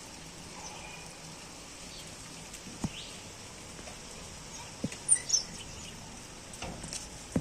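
Steady hiss of rain, with a few brief high bird chirps about five seconds in and a couple of sharp taps.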